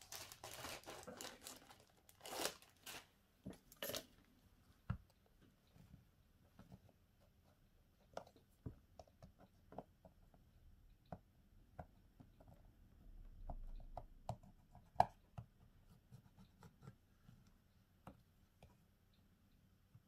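Faint handling sounds of a smartphone being worked on during a battery replacement: a rustling, tearing sound over the first couple of seconds with a few sharper strokes, then scattered light clicks and taps.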